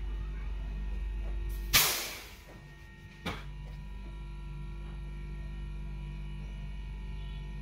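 Steady low electrical hum from the newly fitted refrigerator compressor running. Nearly two seconds in, a sudden loud burst of noise fades over about half a second and the hum drops out. A sharp click a second and a half later brings the hum back.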